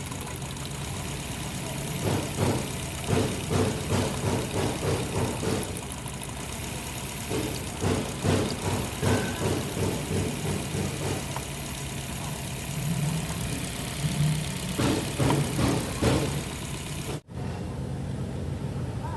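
Toyota Corolla engine idling unevenly, with irregular louder stumbles over a steady drone: the rough running of an engine misfire. The sound drops out abruptly for an instant near the end, then the idle resumes.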